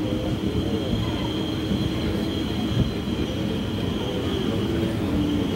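Passenger coach of an Indian Railways express train rolling slowly over the rails as it pulls out of a station, heard from on board: a steady rumble of the wheels with a thin high whine held over it.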